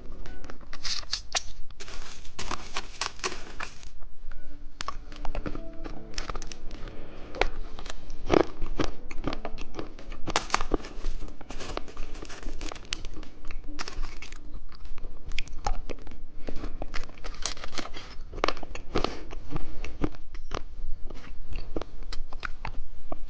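Close-up crinkling and crunching as candy is handled and hard candy is bitten and chewed, many irregular sharp crackles, over faint background music.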